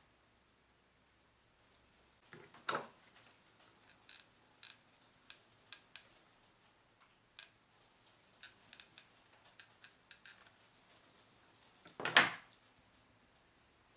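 Hands handling a fabric lampshade and a hot glue gun on a wooden tabletop: light clicks and rustles, with a knock about three seconds in and a louder one near the end.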